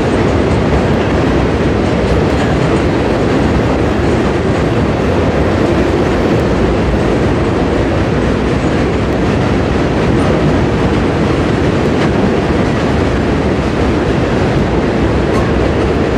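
Norfolk Southern freight train's cars, intermodal containers and tank cars, rolling steadily across a steel truss railroad bridge: a continuous, even rumble of wheels on rail, with a few faint clicks.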